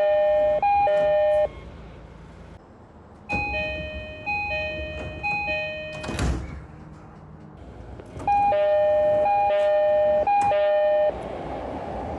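Japanese commuter train door chimes, a two-note ding-dong repeated in threes: one chime ends about a second and a half in, a quieter, brighter-sounding one plays from about three seconds in, and a louder one from about eight seconds in. A single sharp thump comes between the second and third chimes, and a rushing noise follows the last chime near the end.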